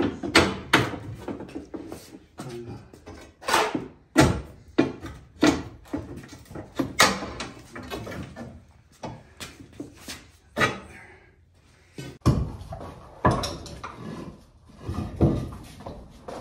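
Irregular metallic clanks and knocks of a long steel pry bar striking and levering against a Jeep Wrangler's bumper and frame, several a second at times, with a pause about 12 seconds in before a few more knocks.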